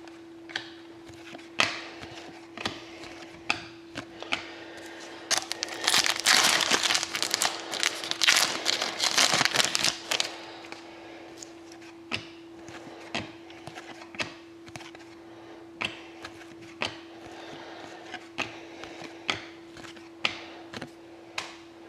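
A foil hockey card pack wrapper being torn open and crinkled for several seconds, starting about five seconds in. Cards are then flicked and laid down in a string of light clicks, over a steady faint hum.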